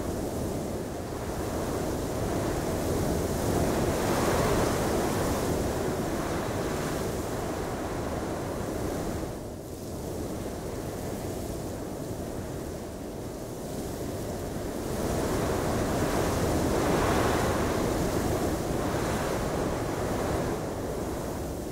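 Snowstorm wind sound effect: a steady rushing blow that swells into stronger gusts a few seconds in and again past the middle, easing off briefly about a third of the way through.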